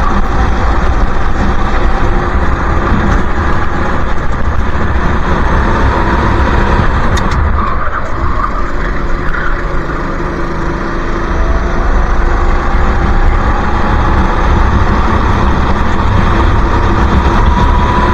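Go-kart engine running at racing speed, with heavy wind buffeting on the microphone. The engine note drops and quietens around eight to ten seconds in, then climbs steadily near the end as the kart accelerates.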